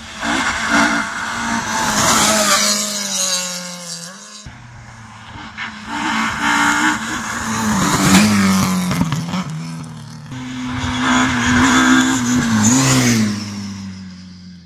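Rally car at full stage pace, a BMW E30, its engine revving hard, the pitch climbing and dropping sharply with each gear change. It comes on louder and passes close near the end. The sound breaks off abruptly about four and a half seconds in before the engine note picks up again.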